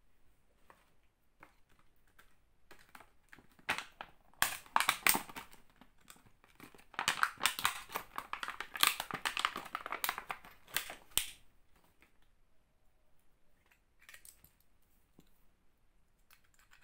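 Eyebrow trimmer and its plastic packaging being handled: a rapid run of small plastic clicks, rattles and crinkling. It comes in two spells, one about four seconds in and a longer one from about seven to eleven seconds.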